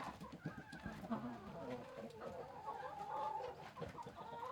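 Chickens clucking with short, repeated calls.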